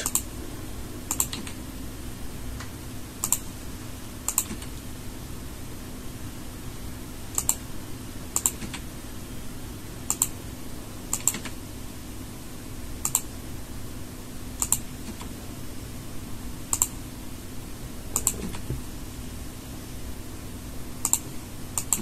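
Computer keyboard keys and mouse buttons clicking one at a time, about a dozen single clicks spaced unevenly one to three seconds apart, over a faint steady low hum.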